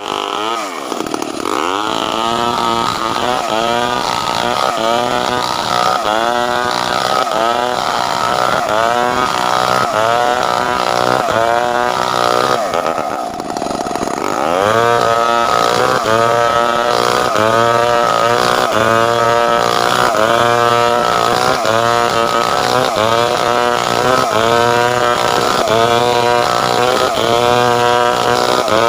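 Two-stroke chainsaw cutting timber into boards under load. Its engine pitch rises and falls in a steady rhythm about one and a half times a second, with a brief drop and recovery about halfway through.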